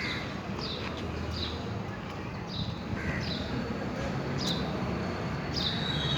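A bird calling repeatedly: about six short, high chirps that fall in pitch, a little under a second apart, over a steady low background rumble.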